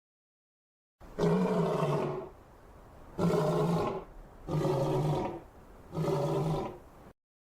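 Lion roaring: four loud, deep roars about a second long each, with short pauses between them, the sequence cutting off abruptly.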